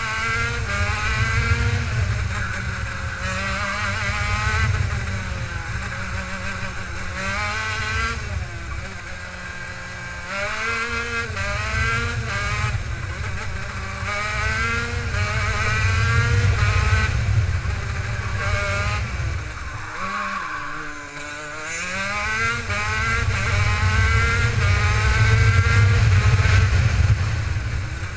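Kart engine at racing speed, pitch rising as it revs up along the straights and falling away as it lifts off for the bends, several times over, with a deep drop and climb back about two-thirds of the way through. A heavy low rumble of wind buffeting the onboard microphone runs underneath.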